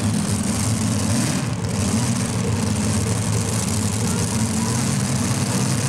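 Multi-engine modified pulling tractor's engines idling steadily with a low, even rumble.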